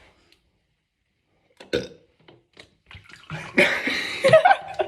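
A long, loud burp of about a second and a half, rough with a wavering pitch, starting a little over three seconds in; a short sharp sound comes about a second and a half before it.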